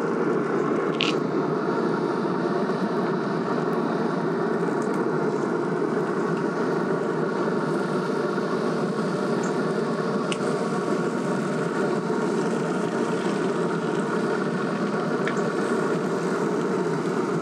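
Steady whir of a running pellet grill, its fan blowing with the lid open while it cooks at about 350°F, with a few faint ticks.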